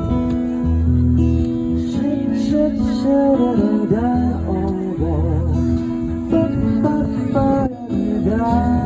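A live band playing an instrumental passage: guitar and bass under a lead melody that bends and slides in pitch.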